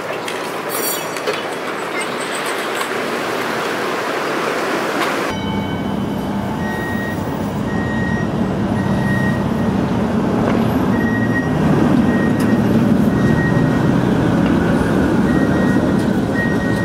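Streetcars rolling past on their rails. First comes the noisy rush of a car passing close. Then a PCC streetcar approaches and goes by with a low rumble and motor hum that grows louder, while a high tone beeps on and off.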